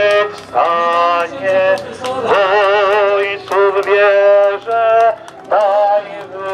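A voice singing a slow melody in held notes, some with a wavering vibrato, with short breaks between phrases.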